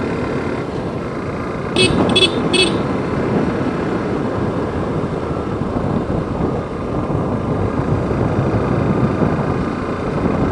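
A Yamaha FZ motorcycle running steadily on the road, with wind rushing over the microphone, and three quick horn toots about two seconds in.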